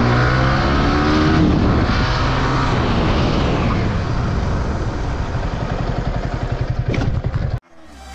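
Yamaha R15 V3's single-cylinder engine off the throttle, its pitch falling steadily as the bike slows for a stoppie, down to slow, separate low-rev firing pulses. The sound cuts off abruptly near the end.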